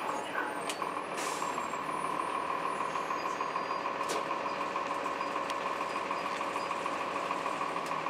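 Cabin sound inside a 2002 Blue Bird CS transit bus with a Cummins ISC diesel: a steady drone with a steady high whine, a few light clicks and rattles, and a short hiss about a second in.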